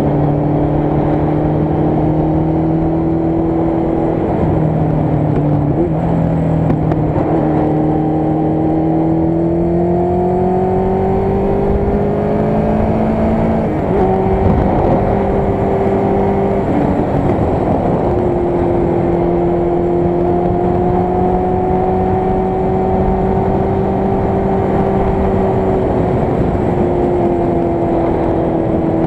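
Motorcycle engine running under way, its pitch slowly rising and falling with the throttle, with a sharp drop about fourteen seconds in and a short break near seventeen seconds.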